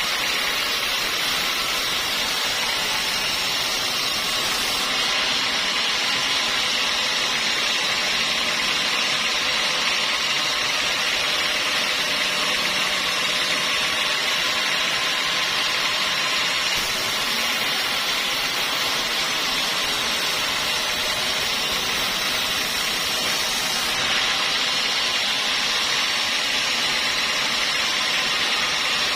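Sawmill saw running, a steady, even machine noise with a strong high hiss.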